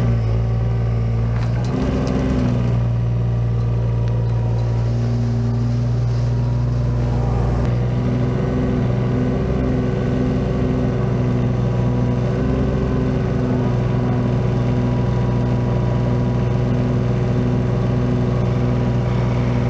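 Kubota KX018-4 mini excavator's diesel engine running steadily at working speed while its arm digs out and lifts an azalea bush by the roots.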